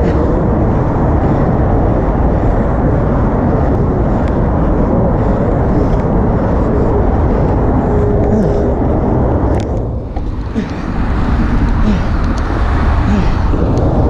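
Wind rushing and buffeting over the microphone of a camera riding along on a road bike, a steady heavy rumble that dips briefly about ten seconds in.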